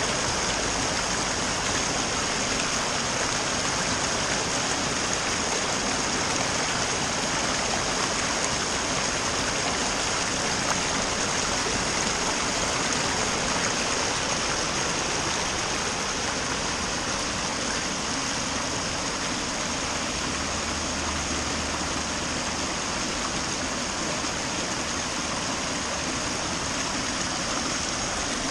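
Steady rush of the River Frome pouring over a weir in heavy flow, heard close to the falling water.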